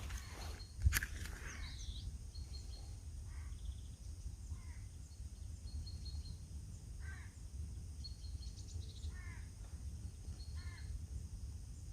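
Birds calling in woodland: about five short, harsh calls spaced a couple of seconds apart, with faint high chirps between them. A single sharp click sounds about a second in, over a steady low rumble.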